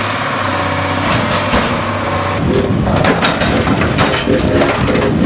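Heavy machinery engine running steadily while lifting and moving a railway caboose, with a series of sharp knocks and cracks from about two and a half seconds in.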